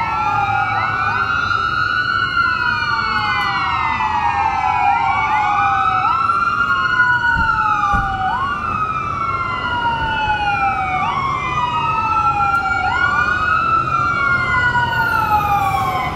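Fire truck siren wailing, each cycle rising quickly and falling slowly, repeating about every two seconds with overlapping sweeps, over the low rumble of the truck's engine.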